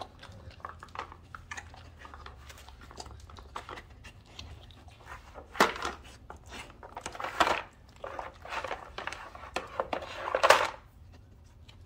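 A dog nosing, pawing and chewing at a treat-puzzle toy, with an irregular run of knocks and clatters from the toy's moving pieces, the loudest about five and a half, seven and a half and ten and a half seconds in.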